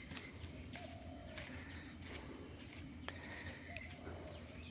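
Faint outdoor ambience: a steady high-pitched insect drone, with a few short, soft calls and scattered light clicks.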